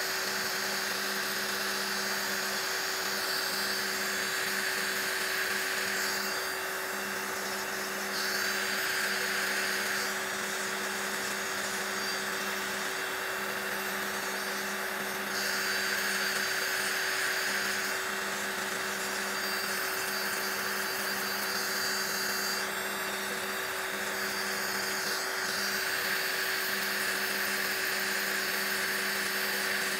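Electric nail drill (e-file) running steadily with its bit grinding old gel off a fingernail. It is a constant high motor whine under a gritty hiss whose tone changes every few seconds as the bit works, the filing-down stage of a gel fill-in.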